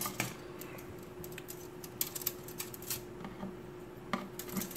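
Plastic model-kit runners clicking and clacking against each other and the cardboard box as they are handled and lifted out, in irregular light taps with a small cluster about two seconds in.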